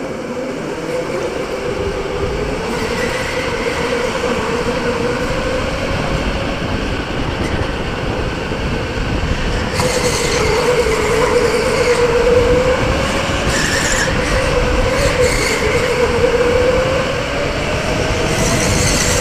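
Electric go-kart motor whining at racing speed, its pitch rising as the kart accelerates and then swinging up and down with speed through the corners, over a steady rush of tyre and wind noise. Brief spells of higher hiss come and go a few times.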